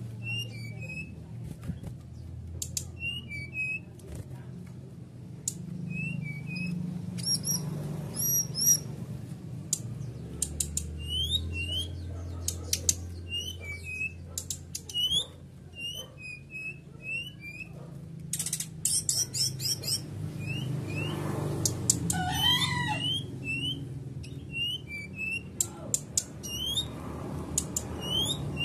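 Brown-chested jungle flycatcher (SRDC) in breeding condition, calling in short, high, hooked whistles and chips that come in irregular runs, with a louder, lower, falling call about 22 seconds in. A steady low hum runs underneath.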